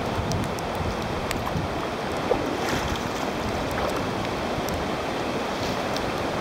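Fast river water rushing and splashing steadily around the boat, with wind buffeting the microphone and a few faint splash ticks.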